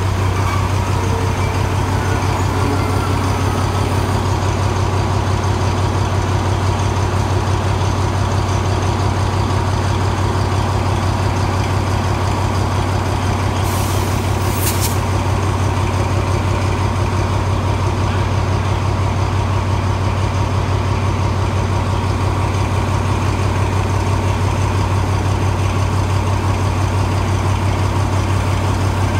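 Diesel-electric locomotive engine idling with a steady, deep, even throb. About 14 seconds in comes a short, high hiss of released air.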